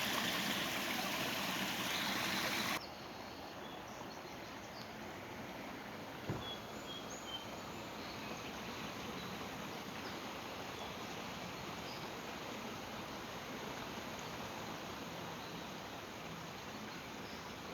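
Steady outdoor noise, loud at first and then dropping suddenly to a quieter hiss about three seconds in, with a few faint high chirps and one sharp tap about six seconds in.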